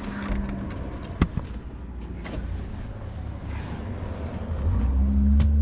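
Small clicks and rustling from hands working loose plastic dashboard trim, with one sharp click a little over a second in. Near the end, low droning background music comes in and grows louder.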